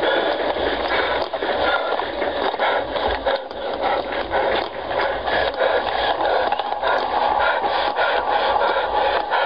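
Continuous crackling, scraping noise, thick with small irregular clicks and knocks.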